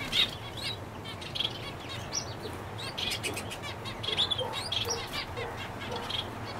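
Society finches (Bengalese finches) giving short, high chirping calls again and again, with a quick run of chirps about three seconds in.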